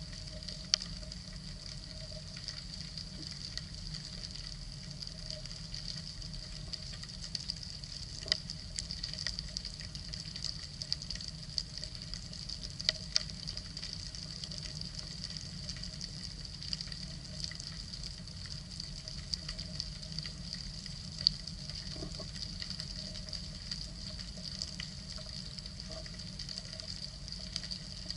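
Underwater ambience recorded with the camera below the surface: a steady, dense crackle of tiny clicks over a low rumble, with a few louder, sharper clicks scattered through.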